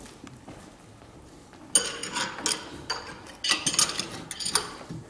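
Steel throwing knives being pulled out of log-round targets and clinking against one another in the hand: a run of sharp metallic clinks starting about two seconds in.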